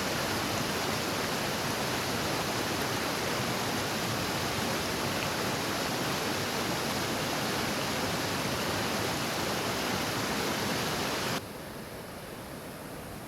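Running water rushing steadily. It cuts suddenly to a softer, duller rush about eleven seconds in.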